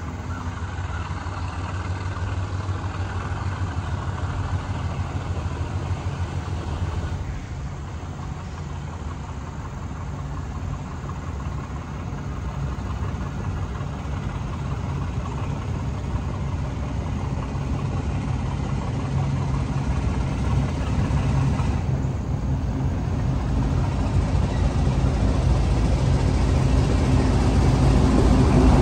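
Diesel locomotive engine running with a steady low hum, growing steadily louder through the second half as the train comes closer.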